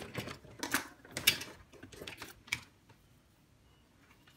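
A series of sharp clicks and light clatter from small hard objects being handled on a workbench, dying away about three seconds in.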